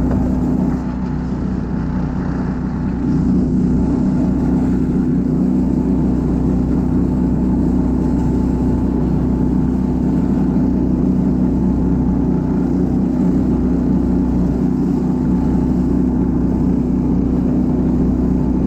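Husky motorized snow tow's engine running steadily under load while pulling a sled with two riders over snow. It holds one even engine note throughout, dipping a little in loudness for a couple of seconds near the start.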